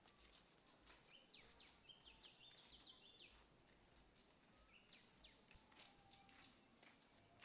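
Faint bird calls: a quick run of short, high chirps about a second in, and another brief run past the middle, with faint scattered clicks in the background.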